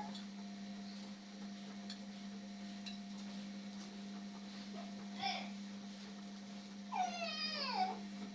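A cat meowing: a short call about five seconds in, then a longer meow near the end that falls in pitch, over a steady low hum.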